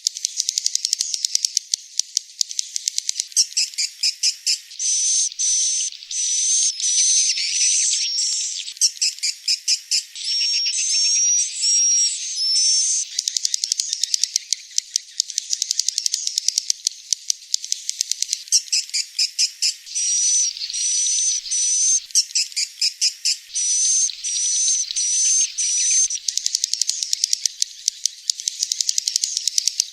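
Edible-nest swiftlet calls, the lure sound used to draw wild swiftlets to nest in a swiftlet house. Fast dry chattering clicks alternate with runs of short high chirps, in a phrase that repeats over and over. There is nothing low in the sound.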